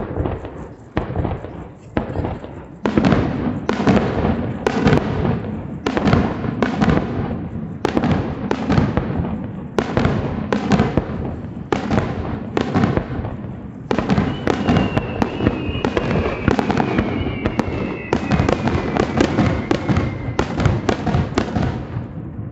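Aerial fireworks shells bursting one after another, with sharp bangs and echoing rumbles. They come thicker and faster from about three seconds in.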